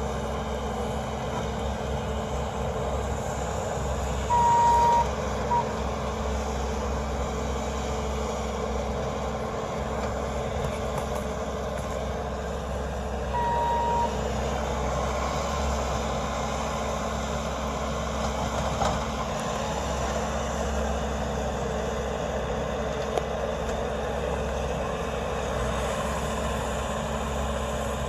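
Bobcat T590 compact track loader's diesel engine running steadily as the machine works the ground. A single high beep from its backup alarm sounds about four seconds in, a short blip follows a second later, and another beep comes at about thirteen seconds.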